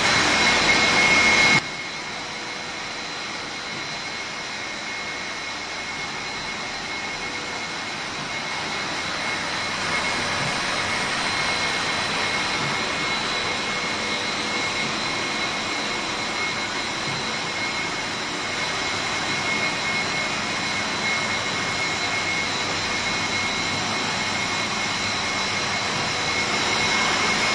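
Core-filled snack extrusion line running: a steady mechanical hiss from the extruder and its drive motor, with a thin high whine over it. It is louder for about the first second and a half, then settles to an even level.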